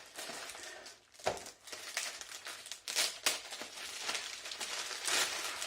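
Packing material crinkling and rustling as it is handled while a cardboard parcel is unpacked, with a soft knock about a second in.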